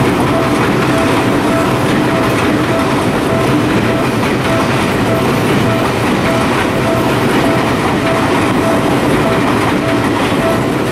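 Japanese level-crossing warning bell dinging at an even, steady rate, over the running rumble and wheel clatter of a passing stainless electric commuter train, a Tokyu 5050-4000 series.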